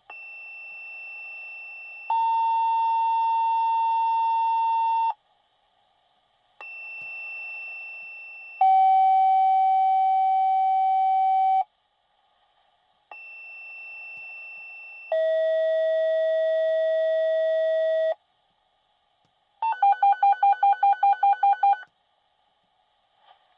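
Fire department dispatch pager tones: three two-tone sequential pages. Each is a quieter high tone of about two seconds followed by a louder, lower steady tone of about three seconds, with each pair at a different pitch. Near the end comes a rapid string of about a dozen alert beeps. These are the tones that set off firefighters' pagers before a dispatch.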